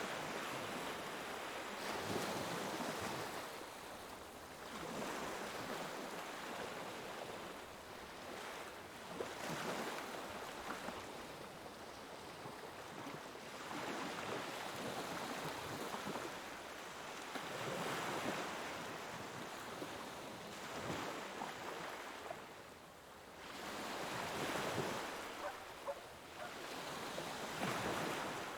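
Ocean waves breaking and washing in surf, rising and falling every few seconds.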